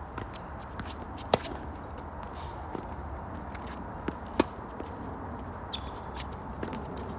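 Tennis rally on a hard court: two loud, sharp racquet strikes on the ball close by, about three seconds apart, with fainter hits and ball bounces from the other side between them. Shoes scuff and patter on the court surface throughout.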